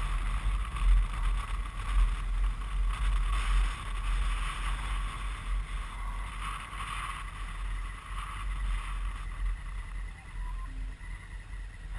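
Motorcycle riding noise from a Honda Africa Twin at low speed: a low, fluctuating wind rumble on the helmet-mounted microphone with the bike running underneath. It eases a little after about four seconds.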